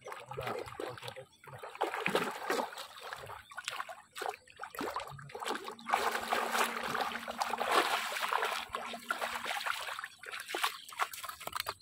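Splashing in shallow water from a hooked striped snakehead (murrel) thrashing on a set hook line, in irregular bursts, heaviest about six to eight seconds in.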